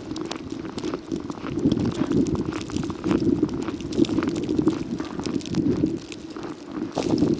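Footsteps crunching through snow at a walking pace, about two steps a second, with many small crackles.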